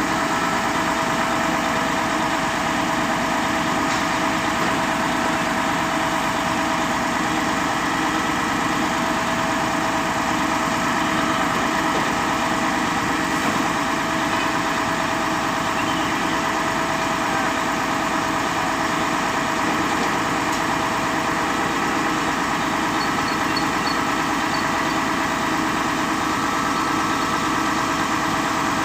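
XCMG concrete pump truck's engine running steadily, with a few steady humming tones over it.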